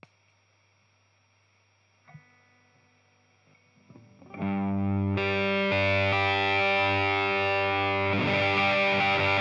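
A stompbox footswitch clicks the Nux Plexi Crunch overdrive pedal on, and for about four seconds only its hiss and a low hum are heard: the pedal's noticeably high noise floor, though still usable. About four seconds in, distorted electric guitar chords are strummed through it and ring on, restruck twice.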